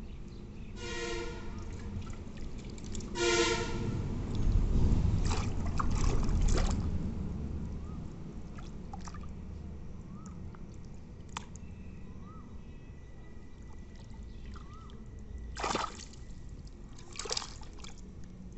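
Hands sloshing and splashing through shallow muddy water, with a low rumble for a few seconds in the middle. Two short pitched calls sound about a second and three seconds in.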